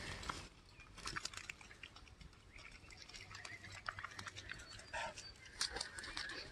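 Faint scattered rustles and small clicks from dogs moving about on a log and in grass, with no barking.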